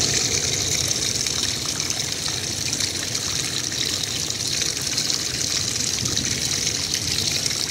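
A small stream of water spilling down between boulders and splashing into a shallow, stony pool: a steady trickling and splashing, with most of its hiss high up.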